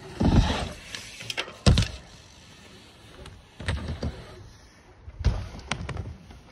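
Mountain bike on a dirt jump: four heavy thuds of the tyres hitting the ramp and the landing, with sharp clicks and rattles from the bike between them.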